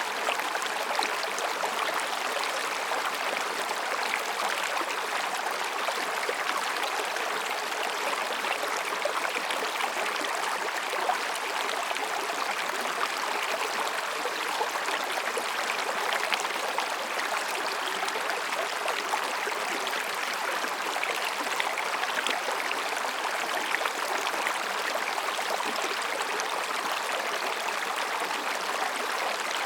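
Mountain stream babbling over and between rocks: a steady, even rush of water with no breaks.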